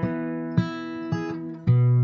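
Background music: acoustic guitar chords, a few strums and then a last chord near the end that rings on and fades.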